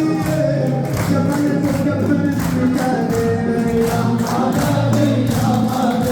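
Loud Arabic wedding music: voices singing over a steady percussion beat with tambourine-like jingles.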